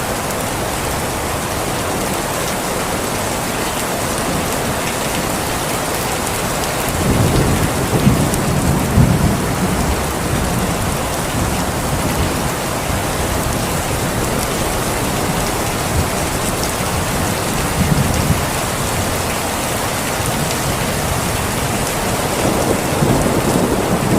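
Steady rain falling, with low rolls of thunder rumbling under it about seven to ten seconds in and again briefly a little later.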